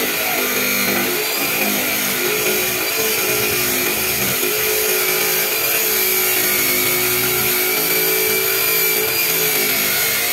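14-inch abrasive cut-off saw running under load as its disc grinds through a steel pipe: a steady, loud grinding whine whose pitch drifts slightly as the cut goes on.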